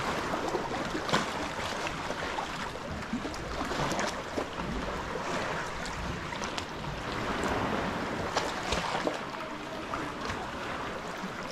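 Sea kayak being paddled through calm water, the paddle blades dipping and dripping in irregular splashes over the steady slosh of water against rock.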